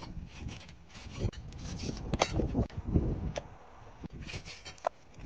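Cleaver cutting pork on a wooden chopping block: uneven slicing strokes, with a few sharp knocks of the blade on the wood, about two seconds in, at three and a half seconds and near the end.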